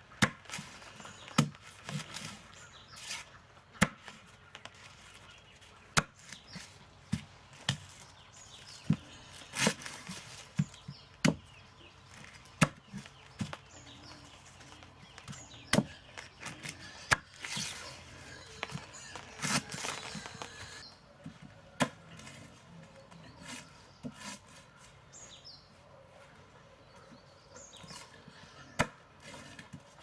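Chopping: about twenty sharp knocks at uneven intervals, like a blade striking wood, thinning out in the last third.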